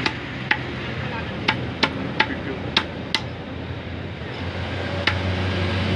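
A heavy steel cleaver chopping chicken on a wooden tree-stump block: about eight sharp chops, irregularly spaced, the last a second or so before the end. A low steady hum grows in the background from a little past the middle.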